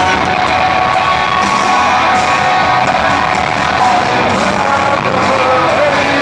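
Heavy metal band playing live in an arena, loud and dense, with distorted guitars and drums filling the hall.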